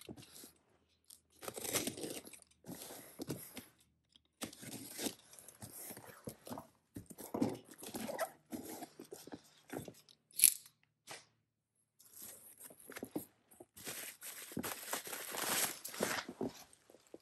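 Cardboard shipping box being opened by hand: tape slit with a pen-shaped cutter and the flaps scraped and pulled back, with one sharp click about ten seconds in. Near the end, bubble wrap crinkles as the wrapped contents are lifted.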